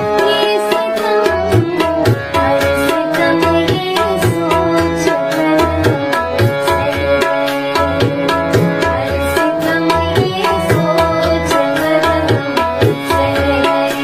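A woman singing a slow Urdu song over a steady drum rhythm and instrumental backing.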